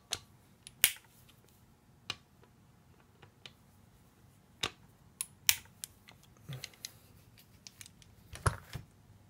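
Scattered sharp metal clicks and clinks from a screwdriver, gripped with vise grips for extra leverage, working loose the steel screws of the accumulator end plate on a 42RE automatic transmission's aluminium valve body. The clicks come singly, a few seconds apart, the loudest about a second in and again past the middle.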